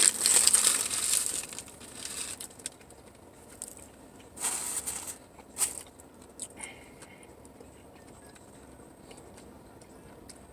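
Food wrapper crinkling and rustling in loud bursts at the start and again about four and a half seconds in, with scattered small clicks and taps between.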